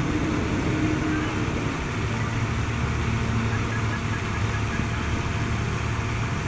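Steady outdoor background rumble and hiss with a low hum underneath, with no distinct single event.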